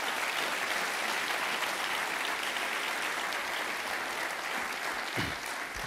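Audience applauding, a room full of people clapping steadily, beginning to die down near the end.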